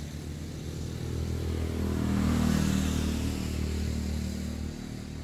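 A motor vehicle passing on the highway, its engine and road noise growing louder to a peak about halfway through, then fading away.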